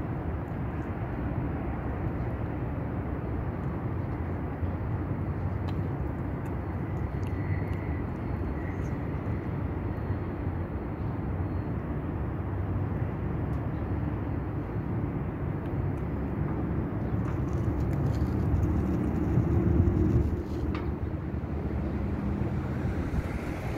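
Steady low outdoor rumble of city background noise, swelling a little about nineteen seconds in.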